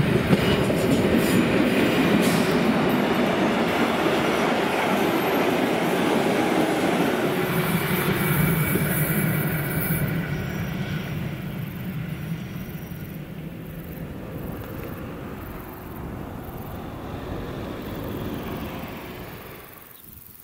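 ÖBB class 2143 diesel-hydraulic locomotive's SGP 12-cylinder engine working hard as it hauls a train of coaches uphill past, followed by the coaches rolling by. The sound fades from about nine seconds in as the train moves away.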